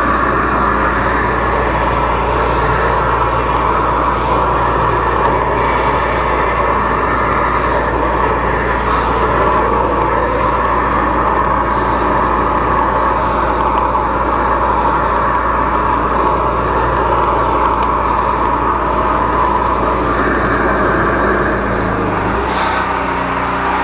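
13-horsepower engine-driven high-pressure sewer jetter running steadily, its engine and pump drone under a broad rushing hiss of water-jetting through a drain line.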